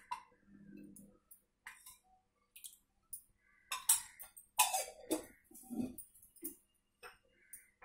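Scattered clinks and knocks of metal kitchenware being handled by the stove, busiest in the middle, with a faint low hum during the first second.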